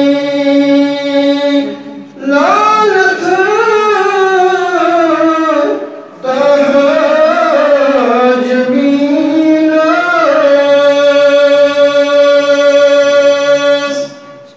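A man's solo voice chanting a naat, an Islamic devotional poem, unaccompanied, in three long melismatic phrases with long held notes and short breaths between them, heard through microphones.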